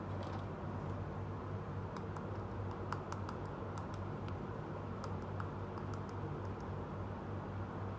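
Scattered light clicks and taps of a small plastic toy being handled in the fingers, over a steady low hum.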